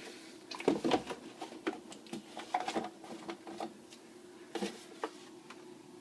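Scattered light clicks and knocks of a plastic drain-cleaner bottle being picked up and handled, over a faint steady hum.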